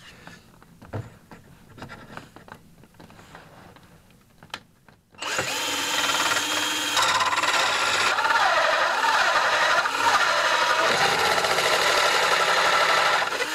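Small cordless drill driving a hole saw through a wooden panel. After about five seconds of faint handling clicks, it starts about five seconds in and runs steadily under load, its pitch wavering as the saw cuts.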